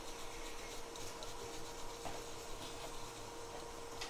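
Steady workbench background noise: a soft hiss with a constant electrical hum tone, and a few faint ticks.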